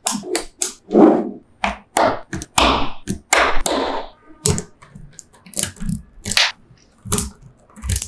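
Small magnetic balls snapping and clicking together as strips of them are pressed into a model: an irregular run of sharp clicks with a few longer clattering rattles.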